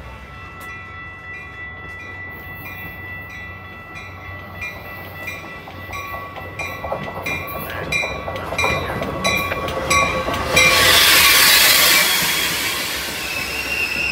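Metra commuter train arriving at the station, with a railroad bell clanging about three times a second and getting louder. About ten seconds in, a loud rushing hiss takes over for about two seconds.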